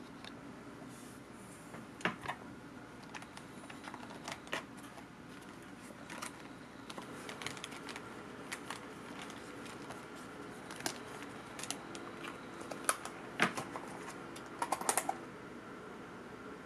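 Clear plastic tea-bag packaging and paper-wrapped tea-bag sachets being handled, crinkling and clicking in irregular snaps, with a quick cluster of clicks near the end.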